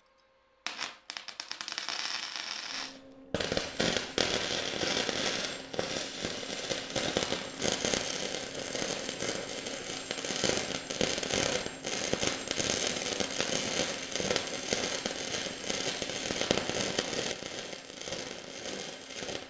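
Electric arc welding crackling steadily on steel. It starts in a short spell of rapid crackle, then runs on as a dense, even crackle from about three seconds in.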